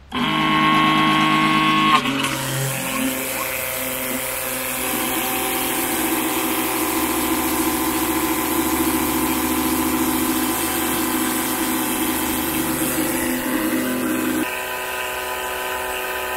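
Small battery-powered electric transfer pump running, pumping fresh engine oil through a hose into a watering can. It starts suddenly with a high whine that drops in pitch about two seconds in and settles into a steady hum, then shifts tone and gets a little quieter near the end.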